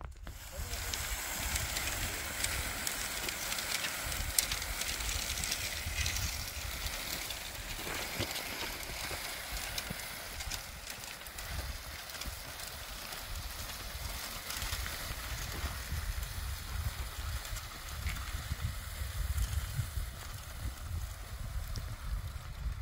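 Bundles of dry brushwood scraping and rustling as they are dragged over stony ground, with scattered footsteps on gravel. A gusting low rumble of wind on the microphone runs underneath.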